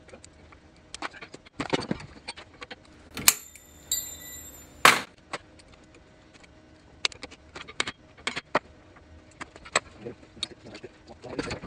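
Scattered metallic clicks and clinks of hand tools and parts being worked on a driveshaft U-joint clamped in a bench vise. One clink about three seconds in rings on briefly, and a sharp click follows near five seconds.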